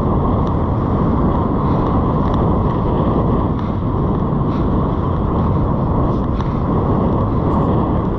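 Wind buffeting the microphone: a loud, steady rumble, with breaking surf behind it.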